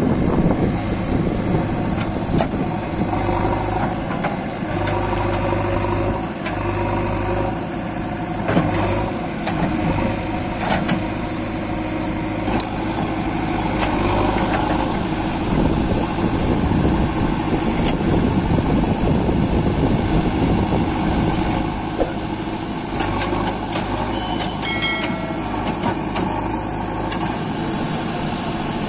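JCB 3DX backhoe loader's diesel engine running under load while the backhoe digs, its level rising and falling, with scattered knocks and one sharper thump about a third of the way in.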